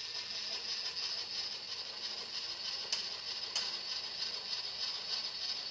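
Milling machine table traversing, carrying the vise past a dial indicator: a steady mechanical running sound, with two sharp clicks about three seconds and three and a half seconds in.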